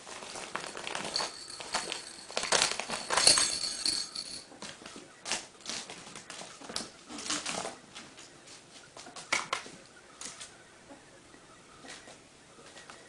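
Ferrets scrambling in and around a ribbed plastic play tunnel, which rustles and crinkles under them, along with scrabbling claws and light knocks. The noise is busiest for the first four seconds or so, then comes in sparser scattered bursts.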